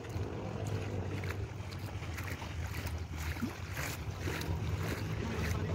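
Repeated light splashes of people wading through ankle-deep seawater, one step about every half second, over a steady low rumble of wind on the microphone.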